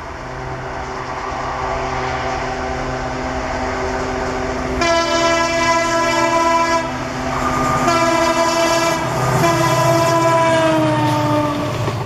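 EMD WDG4 diesel-electric locomotive, its 16-cylinder two-stroke engine running and growing louder over the first couple of seconds. Its air horn sounds three times: a blast of about two seconds, a shorter one of about a second, then a longer blast whose pitch sags as it dies away.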